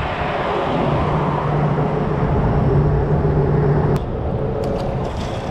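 Steady rumble and hum of vehicle traffic on the road bridge overhead, with a click about four seconds in, after which the hum is quieter.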